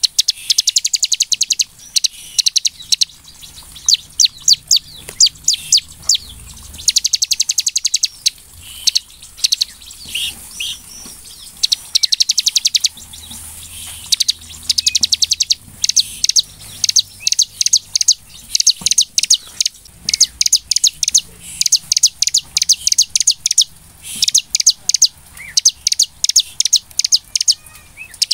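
Bar-winged prinia (ciblek) singing in full, vigorous song: rapid trills of sharp, high notes in bursts of about a second, repeated over and over with short gaps.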